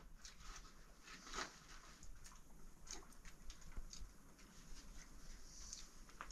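Faint rustling and scattered small clicks of hands handling a cloth bundle of food.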